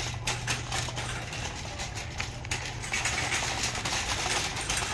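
Metal shopping cart being pushed across a brick-pattern tile floor, its wheels and wire basket rattling steadily, growing louder and brighter about three seconds in.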